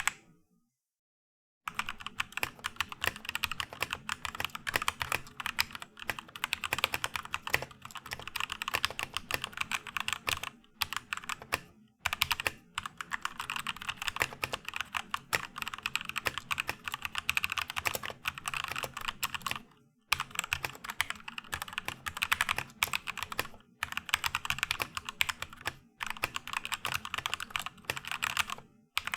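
Typing on a 60% mechanical keyboard with lubed Gateron Yellow linear switches: rapid keystrokes in long runs, with a short silence about a second in and brief pauses every few seconds.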